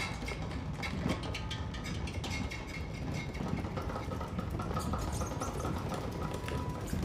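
Steady low rumble of a train carriage in motion, with scattered light clicks and brief high squeaking tones over it.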